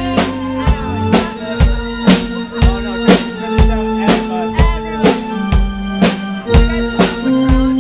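Live rock band playing: a drum kit keeps a steady beat of about two hits a second under electric guitars.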